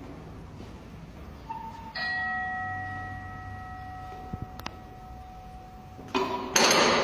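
A sudden metallic clank about two seconds in, then a bell-like ring of a few steady tones that fades slowly over about four seconds, typical of a steel gym bar being struck. Near the end comes a louder, noisy clatter.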